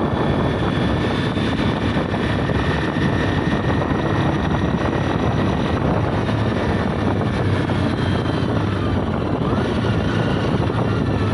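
Motorcycle being ridden at a steady speed: the engine runs evenly under a constant rush of wind noise.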